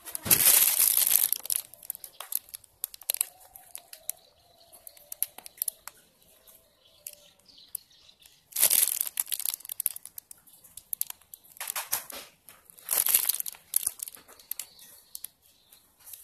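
Plastic piping bag crinkling as it is squeezed to pipe out whipped ice-cream mixture, in several bursts a few seconds apart.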